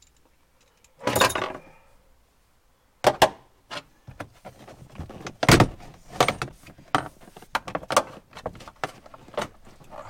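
Metal hand tools clinking and rattling: a ratchet, sockets and an extension are handled in a string of sharp, irregular clicks and knocks. There is a brief rustle about a second in.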